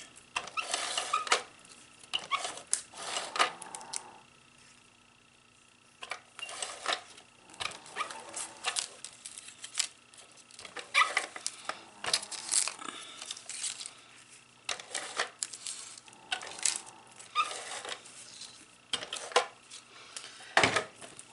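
Paper die cuts and cardstock being handled and stuck down: irregular bursts of rustling with light taps and scrapes, with a short lull about four seconds in.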